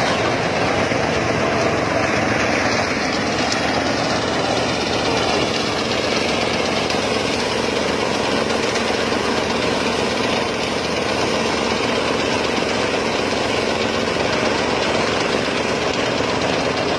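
Engine-driven rice thresher running steadily.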